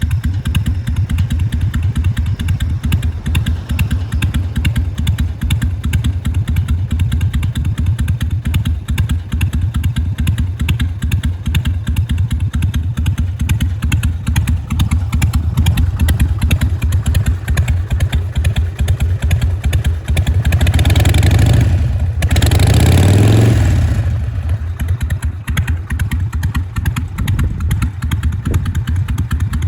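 Harley-Davidson Sportster 883's carbureted air-cooled 45-degree V-twin idling with its uneven 'potato-potato' lope. About two-thirds of the way through, the throttle is blipped twice in quick succession before it settles back to idle.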